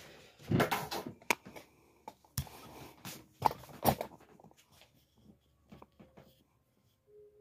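Handling noise from a phone camera being picked up and moved: rustling, with sharp knocks and clicks in the first four seconds, then a few quieter taps.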